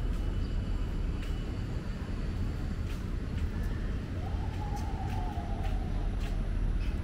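Outdoor walking ambience: a steady low rumble with scattered light ticks, a thin high tone in the first second and a brief, slightly falling mid-pitched sound about four seconds in.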